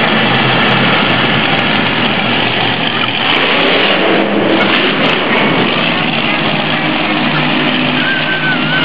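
Monster truck engines running loud and revving, a steady heavy engine noise that swells and eases without a break.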